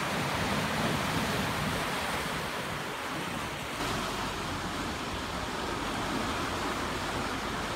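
Ocean surf washing against a rocky shoreline, a steady rush of water.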